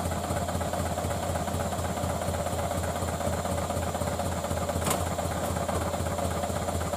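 A loaded Ragasa 4x4 truck's diesel engine running steadily without revving. A single brief click about five seconds in.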